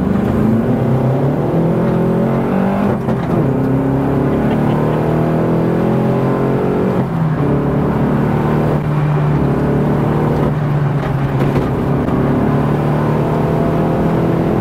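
Turbocharged four-cylinder engine of a heavily modified Mini JCW Challenge 210 race car, heard from inside the cabin, running hard under acceleration. The sound breaks briefly several times, typical of gear changes.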